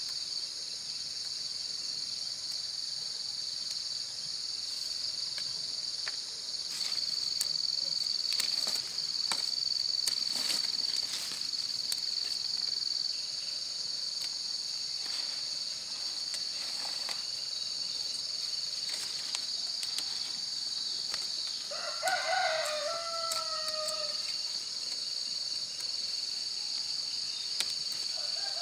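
A steady high-pitched drone of insects such as crickets or cicadas, with scattered clicks and rustles in the first half. About three-quarters of the way through, a rooster crows once, and it starts another crow right at the end.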